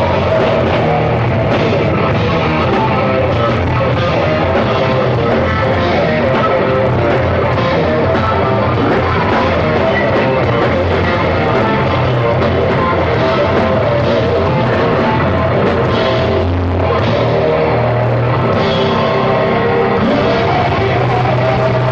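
A rock band playing loud and steady, with electric guitars, bass and a drum kit.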